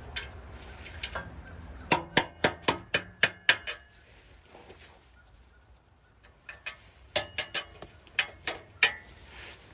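Hammer striking a steel exhaust bolt to drive it out: two quick runs of sharp, ringing metal blows, about five a second, one starting about two seconds in and another from about six and a half seconds in.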